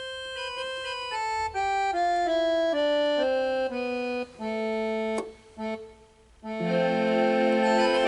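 Yamaha PSR-E273 portable keyboard playing an organ voice: a run of single notes stepping down in pitch, then a few notes with short pauses between them, then louder held chords for the last part.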